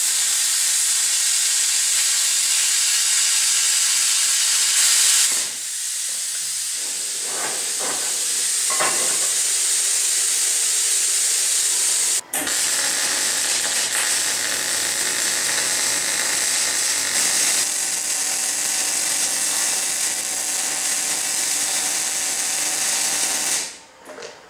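A cutting torch hissing steadily as it cuts a notch in heavy 3/8-inch steel angle, followed by further steady hissing and crackling from cutting and welding the steel. The sound changes abruptly about five seconds in, cuts out for a moment about twelve seconds in, and stops just before the end.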